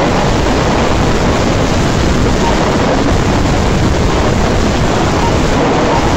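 Steady, dense noise of radio-controlled 4WD off-road race cars running on an indoor dirt track, with brief faint whines now and then.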